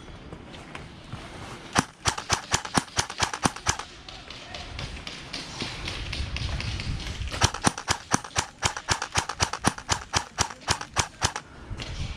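Airsoft gun firing two strings of rapid, evenly spaced shots, about seven a second: a short string about two seconds in and a longer one from about seven seconds in.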